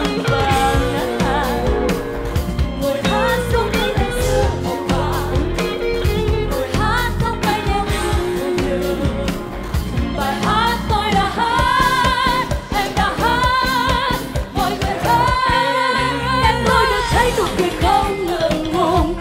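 Women singing a pop song into microphones over pop backing with a steady beat. Several held notes waver with vibrato, mostly in the second half.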